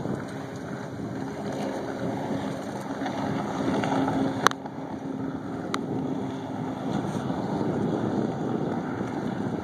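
A 2005 Sea-Doo RXT jet ski running flat out some way off, heard as a steady engine drone under wind on the microphone. Two sharp clicks come about halfway through, a little over a second apart.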